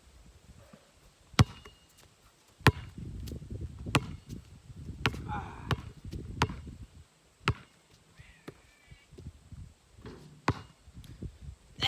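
A basketball bouncing hard on the ground about seven times, the single sharp bounces spaced a second or more apart.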